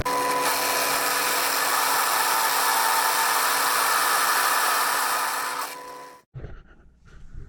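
Pillar drill running at about 1320 RPM, drilling into a steel sprocket blank: a steady motor hum under a loud cutting hiss. Near the end it winds down and stops, followed by a few faint light clicks.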